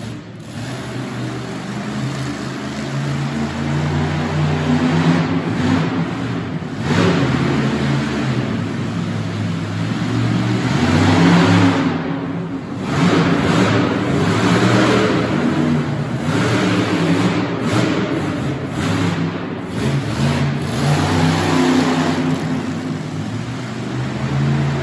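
Monster truck engine revving hard, its pitch climbing and falling again and again as the throttle is worked, with a brief drop in level about twelve seconds in.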